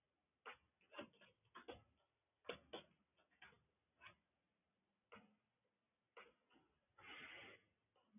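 Faint computer keyboard keystrokes, about a dozen quick irregular taps typing a word, then a few scattered clicks and a brief soft rustle near the end.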